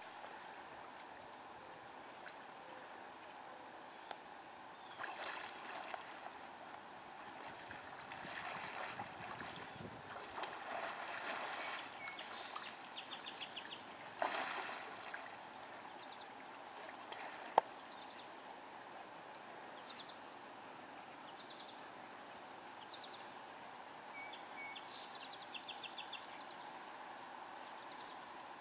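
Hippopotamuses in a muddy river splashing and churning the water in irregular bursts, over a steady high chirring of insects.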